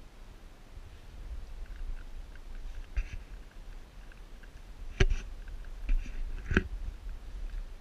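Brindle pit bull gnawing a chew bone: faint scraping ticks, then three sharp clicks or knocks in the second half, the loudest about five seconds in.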